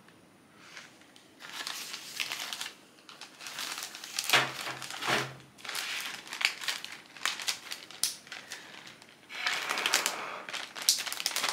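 Plastic zip-top bag crinkling and crackling as it is handled, with a breath blown into the bag near the end to give the cutting inside fresh air.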